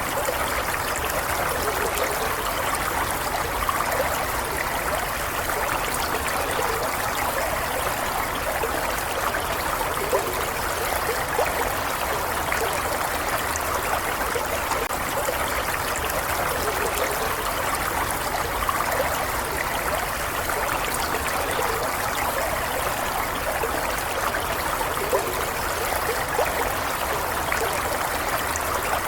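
A stream of water running steadily, a constant rush of flowing water dotted with small splashes.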